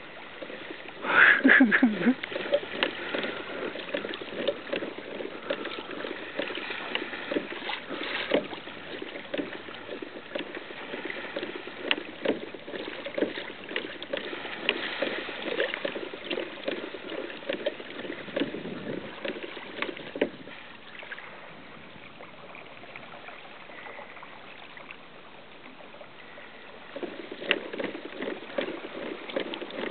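Water splashing and slapping against a moving kayak's hull in choppy water, with many small irregular splashes. It eases off for several seconds past the middle and picks up again near the end.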